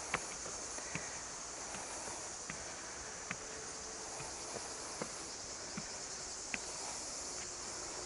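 Steady high-pitched chirring of insects, with the light footsteps of someone climbing stairs, a step about every three-quarters of a second.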